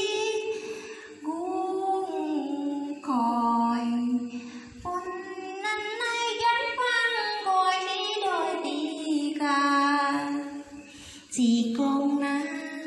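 A woman singing a folk narrative song (vè) unaccompanied, in long phrases of held notes that slide between pitches, with short breaks for breath between phrases.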